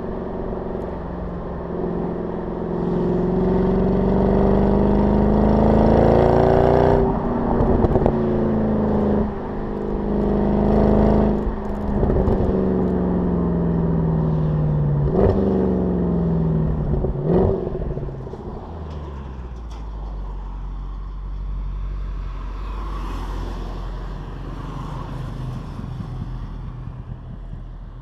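Mercedes-Benz CLS63 AMG V8 exhaust heard right at the tailpipes while driving: the engine note climbs under acceleration, then falls away, broken by several sharp cracks. For the last ten seconds it settles to a quieter, steady low running sound.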